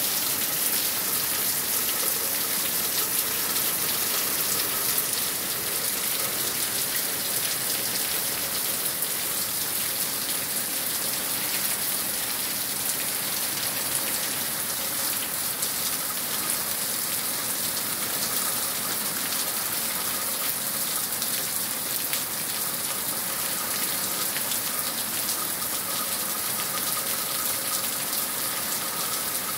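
Heavy rain falling steadily, with streams of water pouring down and splashing onto leaves.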